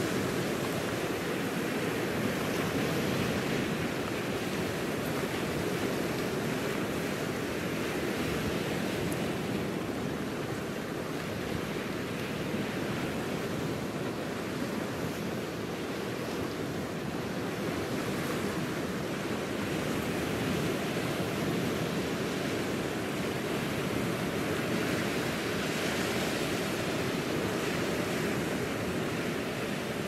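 Sea surf breaking on rocks and a stony shore: a steady rushing wash of waves that swells and eases slightly.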